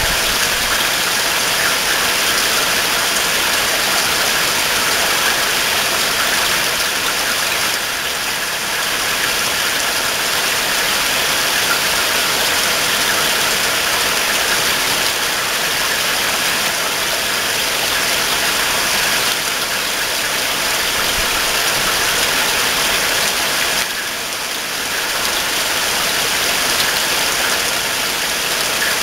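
Heavy rain pouring down in a steady, even hiss, easing slightly for a moment twice.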